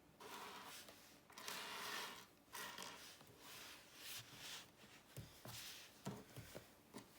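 Faint rustling of packaging being handled, in several short bursts, followed by a few light taps or clicks near the end.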